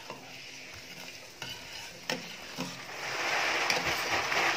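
A metal ladle stirring a stainless steel pot of fruit dessert soup: a few clinks of the ladle against the pot, then louder swishing of the liquid from about three seconds in.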